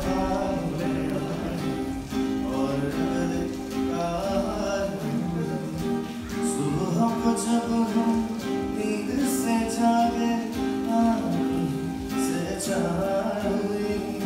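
Live acoustic guitar and a man's singing voice: a solo performer singing while playing an acoustic guitar.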